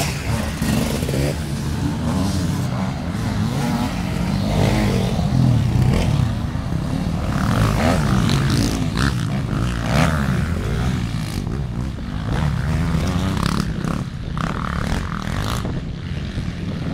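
Motocross dirt bike engines revving hard as the bikes ride over the dirt track, the engine pitch repeatedly rising and falling as the throttle opens and closes.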